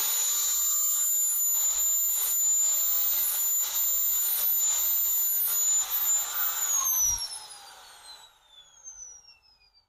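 Handheld angle grinder running at full speed with a steady high whine, its disc grinding the tops of the steel teeth on a power-window regulator's gear sector flat. About six and a half seconds in the grinder is switched off and winds down, its whine falling in pitch as it fades.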